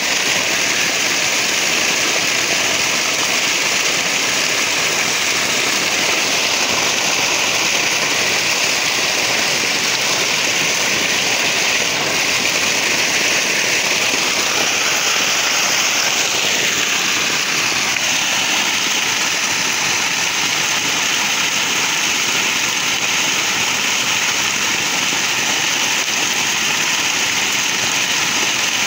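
Water gushing steadily out of a borewell pipe and splashing onto the ground in a continuous rush: the well is overflowing after days of continuous rain.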